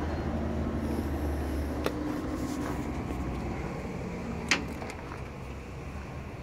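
Low steady machinery hum with two sharp knocks, the second louder, as someone climbs onto a metal forklift.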